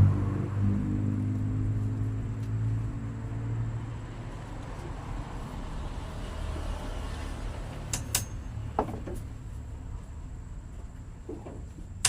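A low machine hum that fades away over the first few seconds, then a few sharp knocks about eight seconds in.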